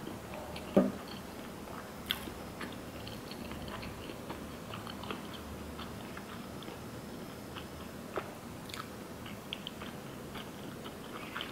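Close-up chewing of a mouthful of sushi burrito with the lips closed: soft, faint, scattered wet mouth clicks, with one brief louder mouth sound about a second in.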